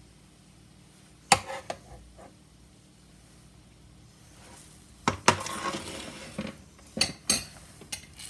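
Metal spoon clinking and scraping against a frying pan as fried apple slices are served into a bowl: sharp clinks about a second in, a knock and a longer scrape past five seconds, then a few more knocks near the end.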